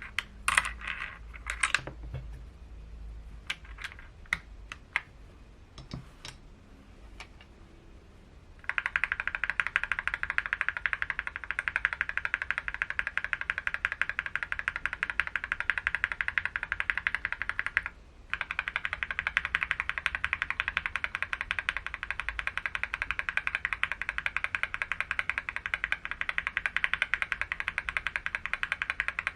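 Typing on a mechanical keyboard fitted with Akko linear switches. A few scattered keystrokes come first, then fast, continuous typing starts about a third of the way in, with a brief break just past the middle.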